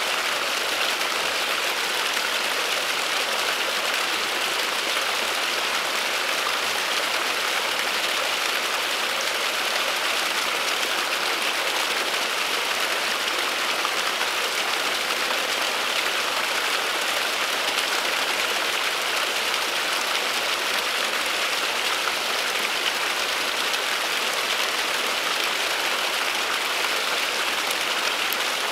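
Small waterfall running down a mossy bank and splashing below, a steady, unbroken hiss of falling water.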